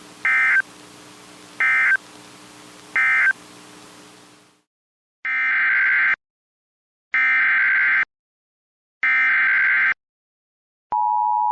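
Emergency Alert System SAME data bursts. Three short end-of-message bursts play over a low hum that dies away. After a pause come three longer header bursts for the next alert. Near the end the steady two-tone EAS attention signal starts.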